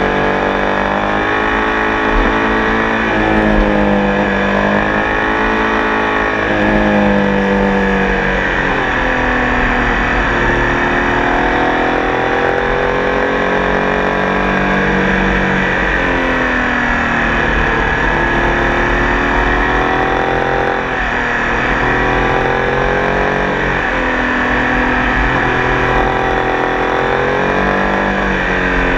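Triumph Tiger Sport 800 motorcycle's three-cylinder engine running under way, its revs climbing and dropping back again and again.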